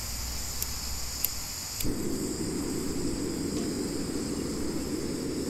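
A lighter is clicked a few times at a titanium remote-canister gas stove burner (Olicamp Xcelerator). About two seconds in, the burner catches and burns with a steady, low rushing sound.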